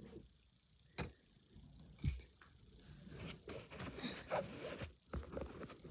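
Wooden popsicle sticks clicking and scraping against each other as they are handled and woven together under tension: one sharp click about a second in, another a second later, then lighter clicks and rubbing.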